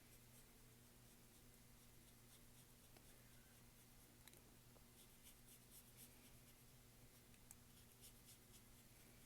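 Faint scratching of a paintbrush stroking acrylic paint onto a canvas in short, irregular strokes, over a low steady hum.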